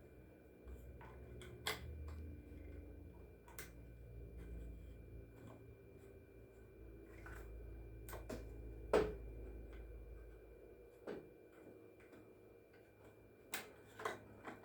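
Faint scattered clicks and taps of a chainsaw's oil reservoir cap and retainer clip being handled and fitted, with one sharper knock about nine seconds in, over a low steady hum.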